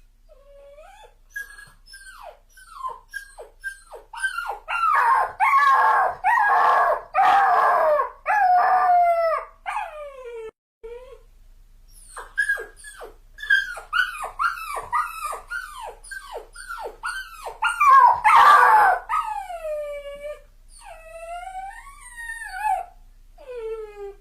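A dog whining and crying: a string of short, high cries that slide down in pitch, swelling twice into louder, longer wails, with a brief break near the middle.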